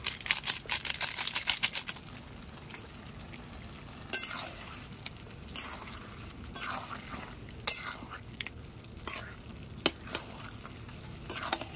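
A plastic spice packet crinkling as it is shaken to sprinkle garam masala, for about two seconds, then a metal spatula stirring duck meat and masala in a metal pan, scraping and clicking against the pan now and then over a low sizzle.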